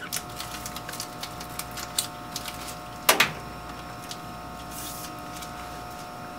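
Steady hum of a biosafety cabinet's blower, with light clicks and taps from plastic labware being handled and a louder clatter about three seconds in.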